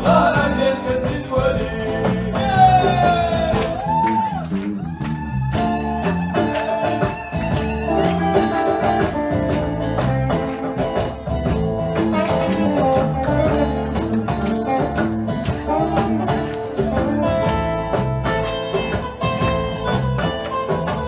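Live Tuareg band playing: electric and acoustic guitars, bass guitar and a hand drum keeping a steady groove, with a few long sliding notes in the first five seconds.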